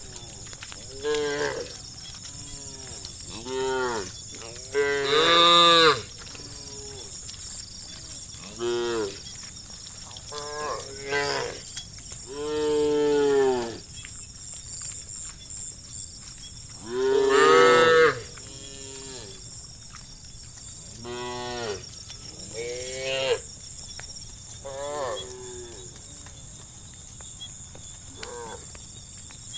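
A herd of cows mooing, a dozen or so separate calls from several animals with short gaps between them, two of them long and loud.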